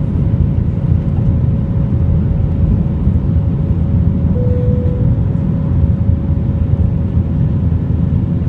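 Airbus A321 jet engines at climb power heard inside the cabin just after takeoff: a steady deep rumble with a faint steady whine. A short faint tone sounds about halfway through.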